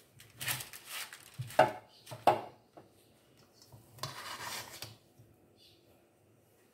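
Spoon scraping and clinking against a stainless steel mixing bowl while scooping stiff cake dough. There are a few scrapes, two sharp knocks about one and a half and two seconds in, and a longer scrape about four seconds in.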